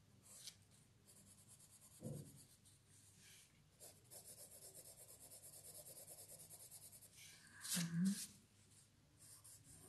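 Faint pencil strokes on paper: a run of quick back-and-forth shading strokes, about four a second, with a knock about two seconds in and a louder rustle near the end.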